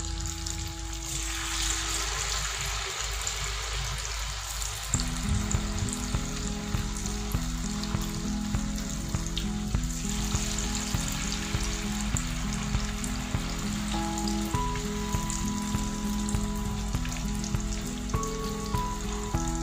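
Battered banana pieces sizzling as they deep-fry in hot oil in a frying pan, the sizzle growing louder about a second in as more pieces go into the oil. Background music with a steady beat plays underneath.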